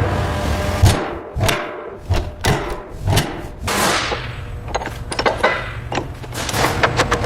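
A run of heavy thuds and knocks, several with a whooshing tail, followed by quicker sharp clicks and knocks, over a low steady rumble.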